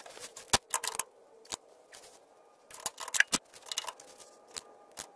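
Hand socket ratchet clicking as it loosens rusty transmission mount bolts: single clicks and short quick runs of clicks at uneven intervals, with a faint steady hum underneath.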